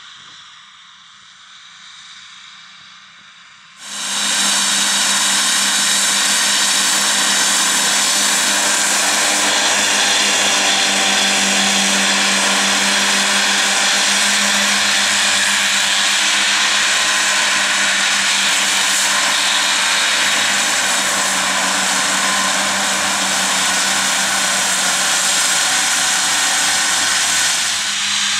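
Fendt 826 Vario tractor running with its Kuhn triple mowers spinning: a steady drone with a strong low hum and a high whine. It is faint at first and becomes suddenly loud and close about four seconds in.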